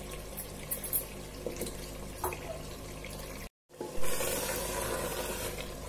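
Mutton keema and potatoes sizzling in a pressure-cooker pan. The sound drops out for a moment about three and a half seconds in; then a spatula stirs through the mix and the sizzle comes back louder, slowly easing.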